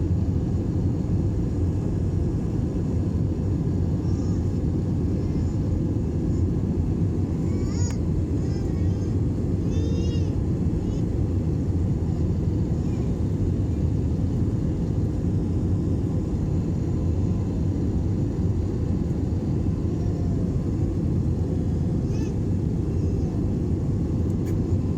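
Airplane during takeoff and climb: a steady, even rumble that stays low in pitch and does not change. A few faint, short high chirps come through about eight and ten seconds in.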